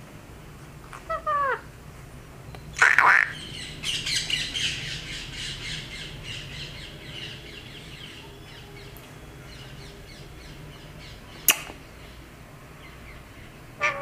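Indian ringneck parakeet calling: a short falling call about a second in, a loud squawk near three seconds, then a few seconds of soft rapid chattering. A single sharp click comes about eleven and a half seconds in.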